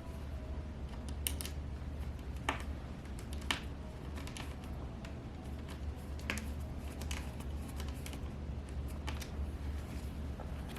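Small screws being driven back into a laptop's screen assembly with a magnetic Phillips screwdriver: scattered light clicks and taps, a few of them sharper, over a steady low hum.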